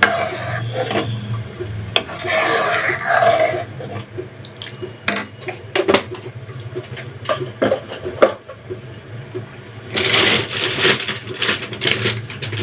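Kitchen utensil noises over a steady low hum: scattered sharp clinks and knocks of metal cookware, such as a ladle against an aluminium kadai, then a burst of rapid rustling and crackling about ten seconds in.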